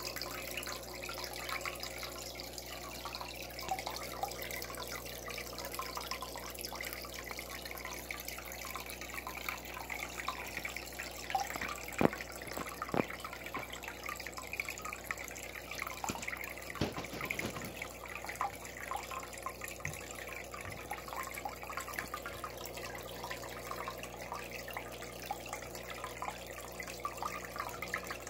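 Steady trickling and bubbling water from the sponge filters of a goldfish tub, with a few sharp knocks near the middle, the loudest about twelve seconds in.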